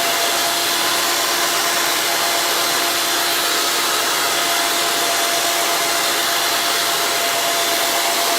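Motor of a ring-cutting machine for wire coils running at steady speed: an even hiss with a constant high whine.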